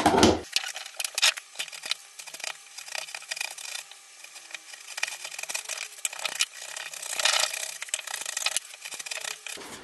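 Wood chisel paring and chipping out the waste of a lap joint: scraping of the blade through the wood with scattered small knocks and clicks.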